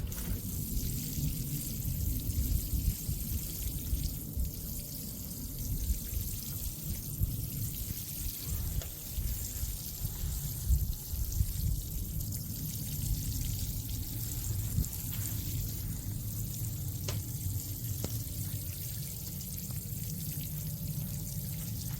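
Water pouring and trickling steadily onto dry soil and Orostachys (rock pine) succulents as they are watered.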